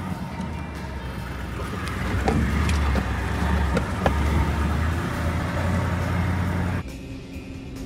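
Engine and cab noise of a four-wheel drive driving down a rough, rutted dirt track, with a few sharp knocks and rattles as it jolts over the bumps. Near the end the sound drops suddenly to a quieter, steadier hum.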